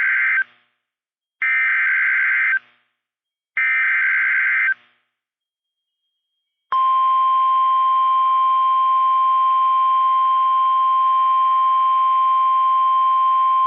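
NOAA Weather Radio alert signals: the end of one SAME data burst and two more identical buzzy data bursts, each about a second long. After about two seconds of silence, the steady single-pitch Warning Alarm Tone starts. The tone signals that a warning broadcast, here a severe thunderstorm warning, is about to follow.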